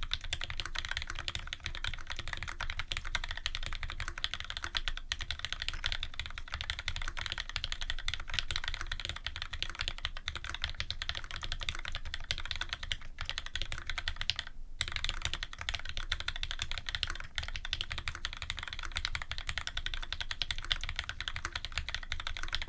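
Fast, continuous typing on a custom Special Dolphin mechanical keyboard with lubed Cherry Retooled Black linear switches, an aluminium plate and GMK keycaps: a dense stream of key clacks, with a brief pause about two-thirds of the way through.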